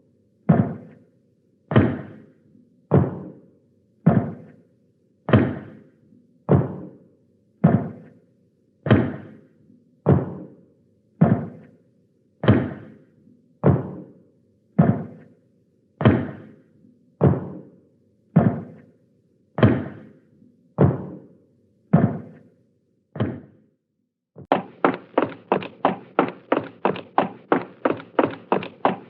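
Footstep sound effect: slow, evenly paced steps a little over a second apart, each a dull knock. About 24 seconds in they change to a much faster run of lighter steps, about four a second, like running.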